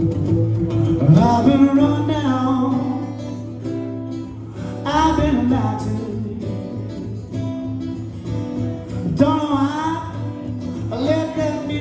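A man singing live to his own acoustic guitar accompaniment. He sings several short phrases over the steady guitar, with the guitar playing alone in the gaps between lines.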